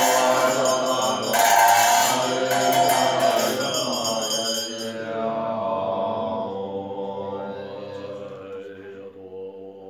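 Tibetan Buddhist liturgical chanting with long held, drawn-out notes that fade steadily. A bright, high ringing sits over the voices for the first five seconds and then dies away.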